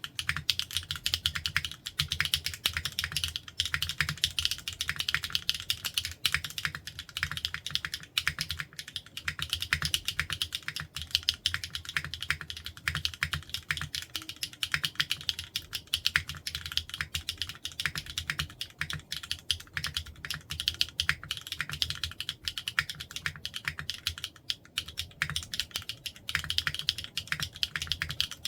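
Fast, continuous typing on a foamless Neo65 CU mechanical keyboard fitted with HMX x XLLAB Yogurt switches and ABS double-shot Cherry-profile keycaps: a dense run of key clacks with a low thud under each stroke.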